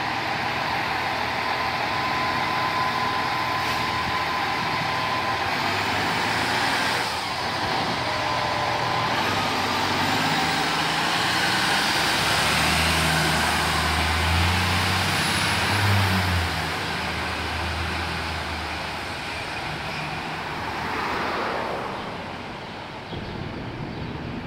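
Diesel engine of a fire department aerial ladder truck pulling out and driving off, its heavy engine hum loudest in the middle and fading near the end, over steady street traffic.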